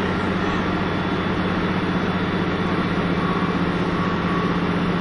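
Cabin sound of a KiHa 25 diesel railcar, its engine droning steadily with a low hum under the running noise.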